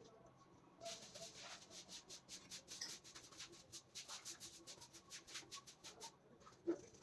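Faint, rapid scratching and clicking of small hand-handled parts, several strokes a second for about five seconds, with one louder tap near the end.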